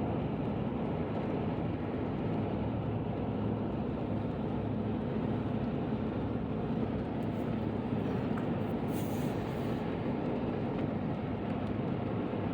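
Steady road and engine noise inside a moving car, with a brief hiss about nine seconds in.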